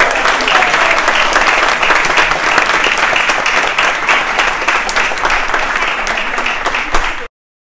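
A small crowd applauding, a dense patter of many hands clapping at once, which cuts off abruptly near the end.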